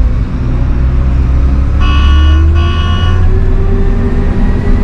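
Combine harvester's engine running, its pitch rising steadily as it revs up, with two electronic warning beeps from the cab about two seconds in.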